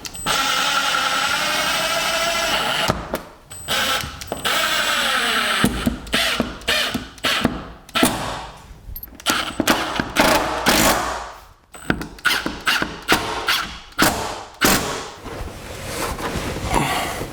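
A power drill runs at steady speed for a few seconds, then slows with a falling pitch. After that come irregular knocks and clatter of tools and parts being handled, with short bursts of drilling.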